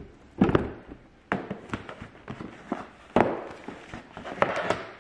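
A cardboard gift box being opened and its packaging handled: a string of sharp knocks and scrapes of the box and lid, with paper rustling between them.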